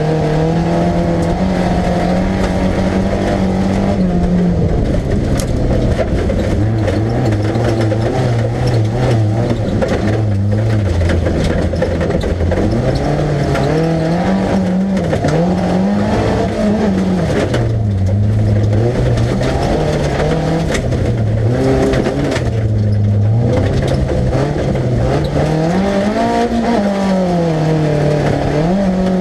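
Fiat competition car's engine heard from inside the stripped, roll-caged cockpit, revving up and falling back again and again through gear changes and corners, with brief lifts of the throttle. A steady rush of tyre and dirt noise runs underneath.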